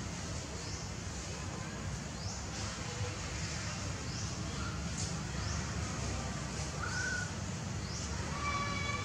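Forest ambience: a short, high, rising chirp repeats roughly every half second over a steady low rumble. A few brief bird calls come in, with a fuller pitched call near the end.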